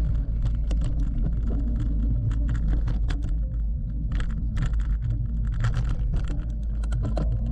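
Mountain bike ridden hard over a dirt trail: a steady low rumble of tyres and air, with frequent irregular clicks and rattles from the bike's chain and frame over the bumps.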